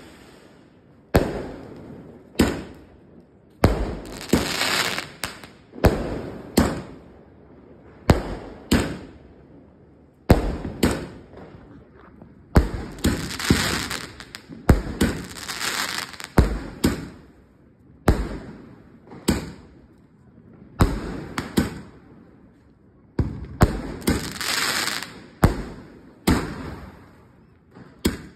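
A Moorthy Antiquity 100-shot aerial firework cake firing: a sharp bang every second or so as shells launch and burst, several bursts trailing off into a second or two of crackling.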